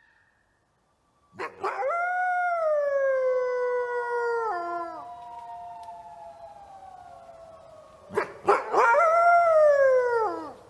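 Wolves howling: a long howl that starts high and slides slowly down, trailing off, then a second, shorter falling howl about eight seconds in.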